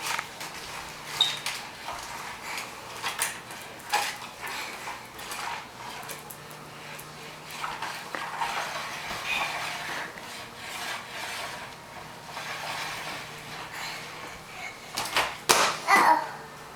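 Scattered knocks, clatters and rubbing from a vacuum cleaner being pushed and handled, with no steady motor noise. A run of louder clatters comes near the end.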